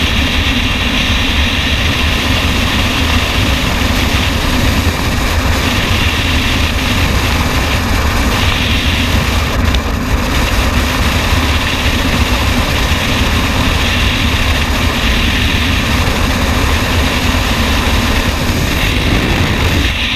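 Loud, steady wind rush of skydiving freefall buffeting a helmet-mounted camera's microphone.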